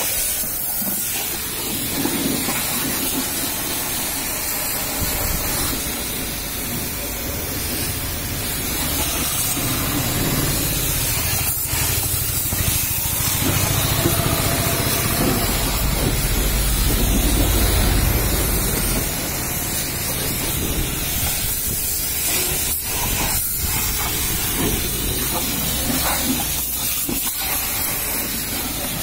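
High-pressure washer jet hissing steadily as it sprays water onto a tyre, wheel and mud flap, getting louder and deeper for several seconds around the middle.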